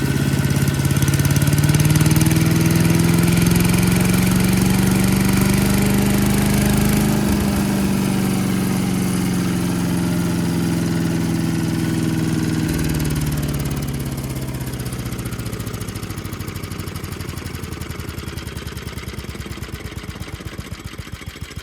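Craftsman wood chipper's 6 hp Tecumseh single-cylinder engine running, speeding up as the governor linkage is moved by hand, then slowing again and winding down to slow, separate firing strokes near the end. The rod from the throttle to the governor is missing, so the engine does not hold its speed.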